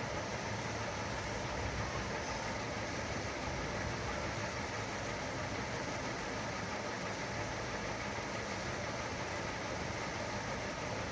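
Steady whirring of a small two-wheeled Quarky robot's electric drive motors as it drives along.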